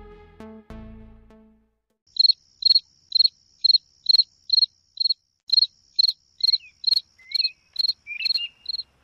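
Cricket chirping steadily, about two short, high chirps a second.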